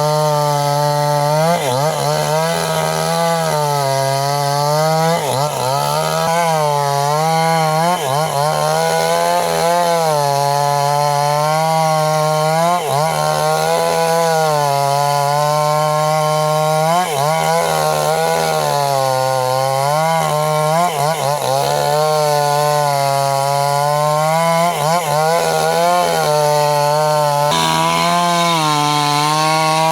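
Small chainsaw running under load as it cuts young teak wood, its engine pitch sagging and recovering every second or two.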